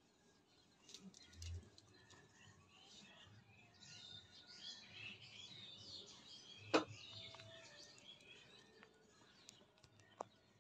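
Faint chirping of small birds, busiest in the middle stretch, with one sharp click about seven seconds in.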